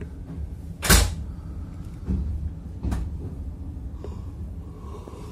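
A loud bang about a second in, then two lighter knocks, over a low steady rumble.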